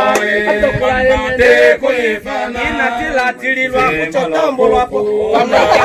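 A group of people singing a chant-like song, with men's voices prominent.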